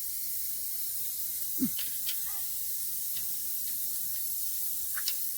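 Steady hiss of rain, with a few faint brief sounds over it, one a short falling low sound about one and a half seconds in.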